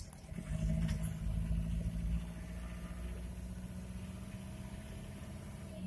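Chevrolet LUV 4x4 double-cab pickup's engine heard from inside the cab while driving, holding a steady note over a low road rumble.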